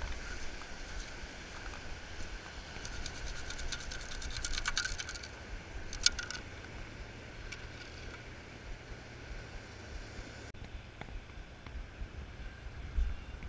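Wet sand and shell bits rattling through the perforated metal basket of a T-Rex beach sand scoop as it is shaken, about three to five seconds in, followed by one sharp clack. Wind buffets the microphone throughout.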